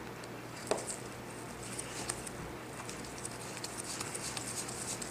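Faint small clicks and ticks of a Phillips screwdriver bit working tiny screws out of the steel home-button bracket on an iPhone 6 screen assembly, with one sharper click just under a second in, over a faint steady hum.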